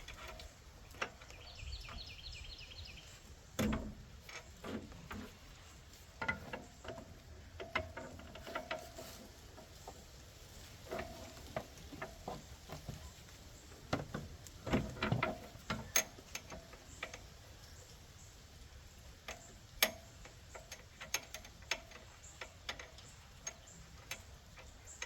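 Irregular metallic clinks, taps and clicks of hand tools and suspension parts as a strut bolt is worked into line, with louder knocks about four and fifteen seconds in and a sharp click near twenty seconds.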